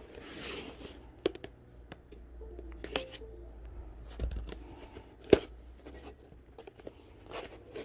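Cardboard product box being handled and pried open by hand: scattered clicks, scrapes and rustles of cardboard, with one sharper knock about five seconds in.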